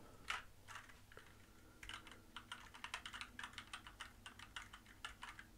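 Typing on a computer keyboard: a few scattered keystrokes, then a quick, steady run of key clicks, ending in one louder click.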